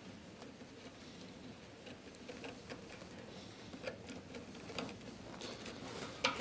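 Faint scratching and light, irregular ticks of a pencil and a small wooden block sliding along a wooden filler piece as a curve is traced. The ticks are a little sharper and more frequent over the last couple of seconds.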